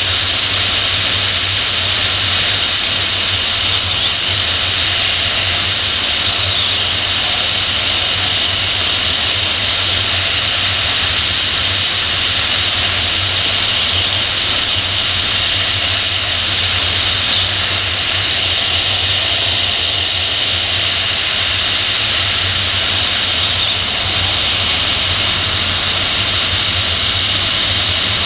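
Steady rush of air over a PIK-20 glider in gliding flight, heard as wind on the outside-mounted camera's microphone: a constant hiss with a low rumble underneath.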